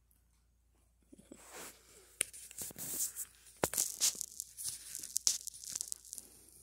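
Irregular crackling and scratching as a tabby cat rubs its head and fur right against the phone's microphone, starting about a second in, with many sharp clicks.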